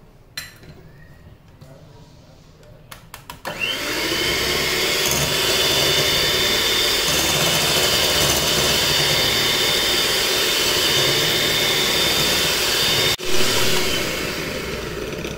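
Electric hand mixer switching on about three and a half seconds in, whirring up to speed and then running steadily as its beaters whip an egg into cake batter in a glass bowl. A brief break about thirteen seconds in, after which the mixer starts to ease off.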